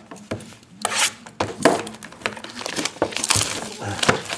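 Plastic shrink-wrap crinkling and tearing in irregular crackly bursts as a sealed box of trading cards is unwrapped.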